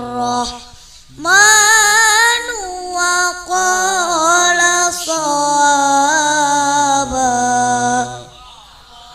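A child's high voice chanting Qur'anic recitation in a melodic, ornamented style. One phrase ends just after the start, then after a short pause comes a long, wavering, held phrase that stops shortly before the end.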